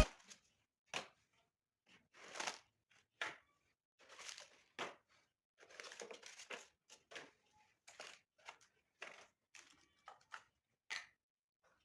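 Faint crinkling and rustling of paper being handled, in a dozen or so short, irregular bursts.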